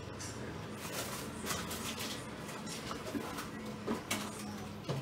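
Knife cutting pancetta on a wooden board: irregular knocks and scrapes, over a steady low hum.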